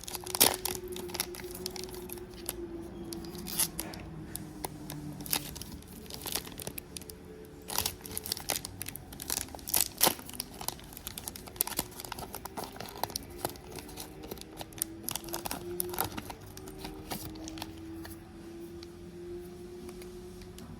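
Foil Pokémon card booster pack being torn open and crinkled by hand, with the cards inside handled. There are many short crackles and rustles throughout.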